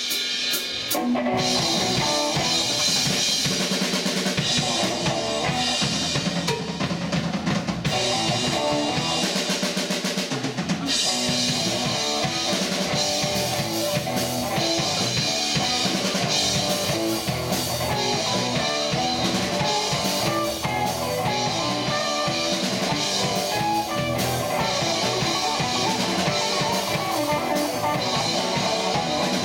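Rock band playing live, an instrumental stretch with drum kit, electric guitars and bass and no singing. The bass drops out briefly twice, around four and ten seconds in.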